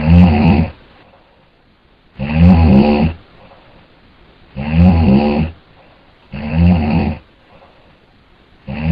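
A man snoring loudly, five heavy snores about two seconds apart.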